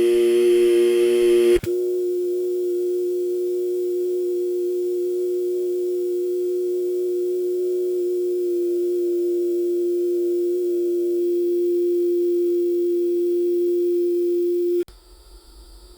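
Biosafety cabinet hum: a steady, pitched electrical hum with several overtones above it. The sound shifts abruptly about a second and a half in, and it drops out suddenly to a faint hiss about a second before the end.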